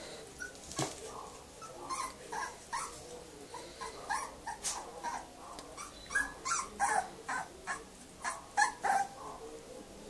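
Two 34-day-old Staffordshire puppies play-fighting, giving a string of short, high yips and squeals, coming faster and louder around the middle of the stretch.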